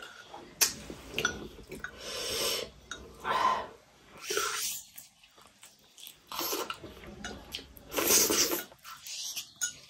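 Close-miked mouth sounds of eating: a string of short wet slurps, sucks and lip smacks as pieces from a bowl of chicken soup are sipped and bitten, with brief pauses between them.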